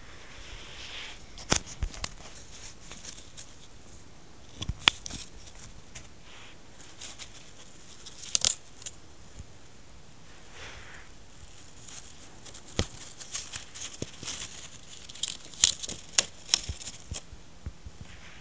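Stiff clear plastic shirt-collar packaging crinkling and clicking as a kitten bats and bites at it: sharp crackles in irregular clusters, thickest in the last few seconds.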